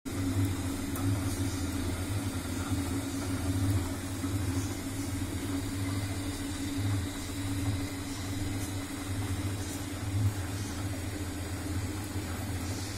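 Long cotton wick making machine running, its motor giving a steady low hum with a few faint light ticks.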